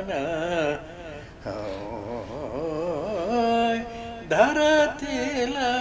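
A 95-year-old man singing a Nepali folk song unaccompanied, drawing out long wavering notes. A short break about four seconds in is followed by a loud, sharply rising new phrase that he then holds.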